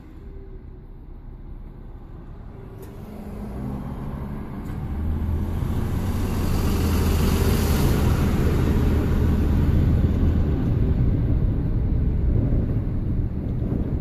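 Car engine and road noise heard from inside the cabin while driving, growing louder from about three seconds in and then holding steady with a low hum.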